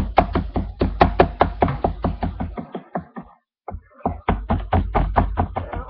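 A spoon hitting Oreo cookies inside a bag to crush them: quick knocks at about four to five a second, in two runs with a short break about three seconds in.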